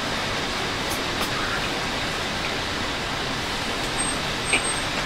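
Steady rain falling on a tent, an even hiss, with a few faint clicks.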